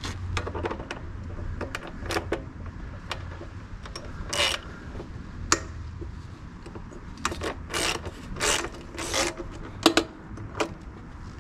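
Ratchet wrench clicking in short strokes and rasping runs as it loosens the 6mm Allen bolt on the stock silencer's mounting bracket.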